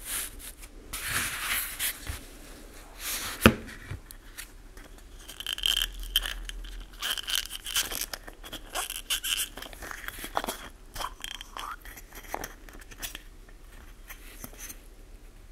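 Handling noise from small plastic objects being worked by hand over cardboard: rustles and light knocks, with a sharp click about three and a half seconds in. From about five to ten seconds in there is a squeaky scraping, plastic rubbing on plastic.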